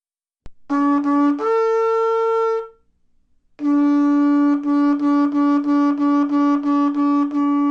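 Shofar blown: a short low note that leaps up to a higher held note, then after a pause a long low note broken into quick even pulses, about three a second.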